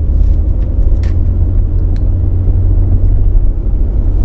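Steady low rumble of a car on the move, engine and road noise heard inside the cabin, with a couple of faint clicks.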